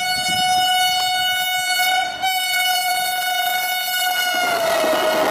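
Train 18 (Vande Bharat Express) electric trainset approaching at speed with its horn held on one steady high note, broken briefly about two seconds in. Near the end the horn's pitch drops as the train reaches and passes, and the rushing noise of the passing train swells.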